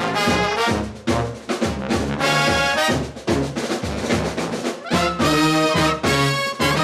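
Live brass band playing: trumpets, saxophones, trombones and a tuba sounding chords over steady snare and bass-drum beats.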